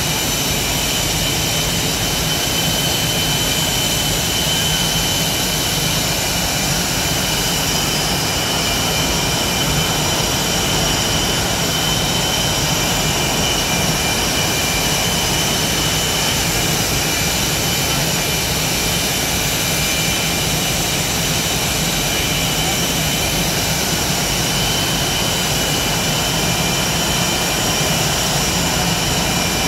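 F/A-18 Hornet jet engines running steadily on the ramp, a loud constant high-pitched whine over a low rumble.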